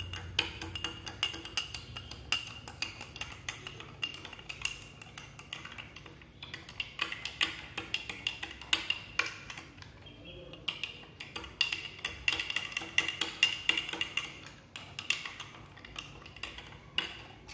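Stainless-steel spoon stirring a milky drink in a glass tumbler, clinking rapidly and repeatedly against the glass.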